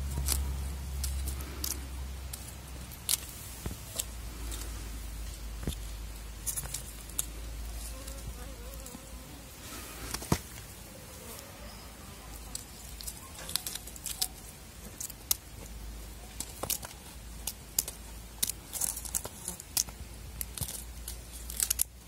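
Crinkling and rustling of a wrapped-candy toy on a string as a kitten bats and grabs at it: short sharp crackles and clicks scattered throughout, over a low steady rumble.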